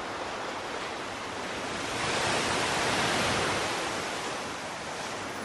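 Ocean surf: a steady wash of waves that swells to its loudest in the middle and then ebbs.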